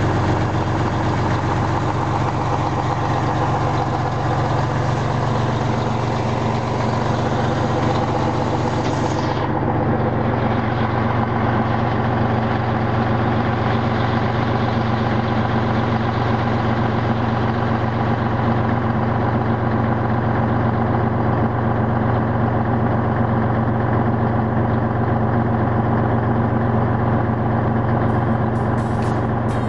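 Scania 112-360 truck's 11-litre straight-six turbo diesel idling steadily. A high hiss rides over it for the first nine seconds or so, then stops.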